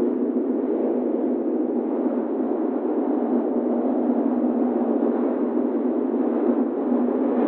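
Wind swirl sound effect: a steady, rushing wind noise, deep and dull in tone, swelling slightly now and then.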